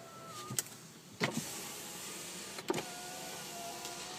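2012 Buick LaCrosse's electric side-window motor running as the glass moves, a steady whine that stops with a click about half a second in. After a sharp click just over a second in, the window motor starts again and whines steadily until near the end.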